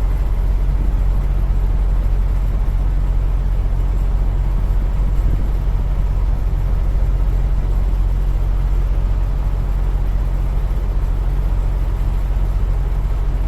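A diesel engine idling with a steady low drone.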